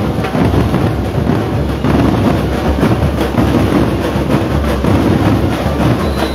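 Marching band drum line playing a continuous dense cadence on snare drums and bass drums.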